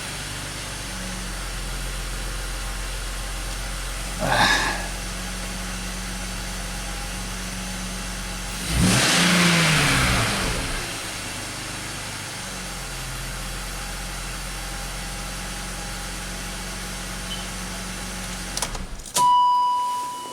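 BMW X5 six-cylinder engine idling as it warms up, with a brief throttle blip about four seconds in and a longer rev around nine seconds that falls back to idle. Near the end the engine sound cuts off abruptly and a steady beep-like tone is heard.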